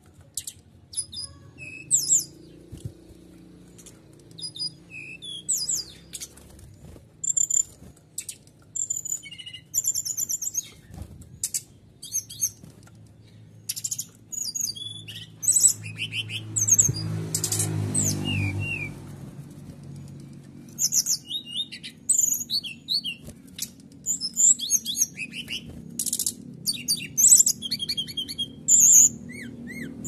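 Brown-chested jungle flycatcher singing a rapid string of short, high-pitched phrases and trills, with canary song mimicked in it. A brief rush of noise sounds about two-thirds of the way through.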